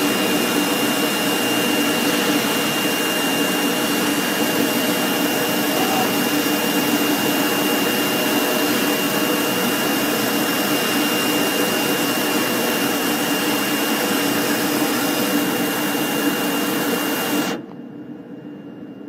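CNC foam cutting machine running: a steady loud whirring hiss with a thin high whine over it. It cuts off abruptly near the end, leaving a much quieter, duller hum.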